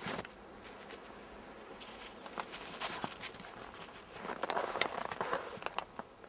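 Footsteps crunching through snow, irregular crunches that grow louder and denser about four seconds in.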